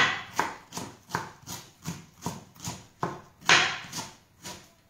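Kitchen knife slicing a raw artichoke thinly on a wooden cutting board, in a steady chopping rhythm of about two and a half strokes a second. The loudest stroke comes about three and a half seconds in.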